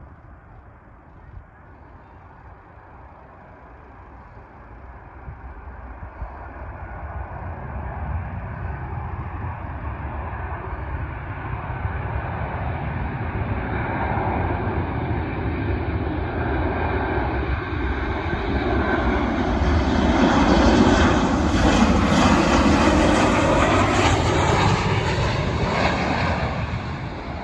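Boeing 737 jet airliner on final approach with landing gear down, its engine noise growing steadily louder as it draws nearer. It is loudest in the last third, where a high whine joins the engine noise, then eases slightly just before the end.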